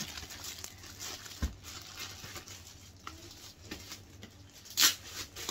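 Plastic shrink-wrap on a GoPro HERO10 box crinkling and rustling as it is handled and peeled off, in irregular small crackles, with a dull thump about a second and a half in and a sharp click near the end.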